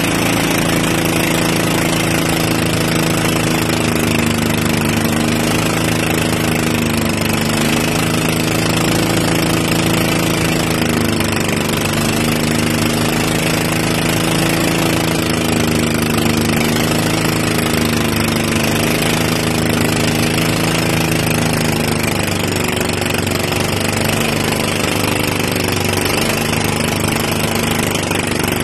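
Motorized outrigger boat's engine running steadily under way, its pitch wavering slightly, over a steady rush of wind and water.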